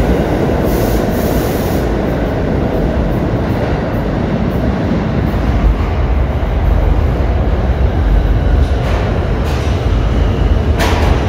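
New York City subway train running through a station: a loud, steady rumble of wheels on rails, with a few sharp clicks near the end.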